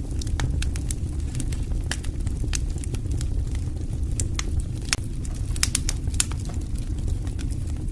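Burning wood campfire crackling, with frequent sharp, irregular pops and snaps over a steady low rumble of the flames.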